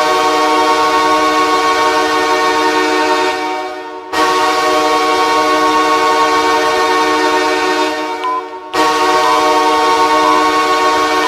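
NHL arena goal horn, a large air horn sounding a chord of several steady pitches in long blasts of about four seconds, breaking off briefly twice.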